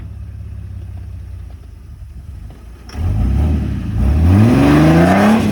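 Off-road 4x4's engine idling, then about three seconds in given throttle, getting louder with its pitch rising steadily as it pulls the vehicle up a rock ledge.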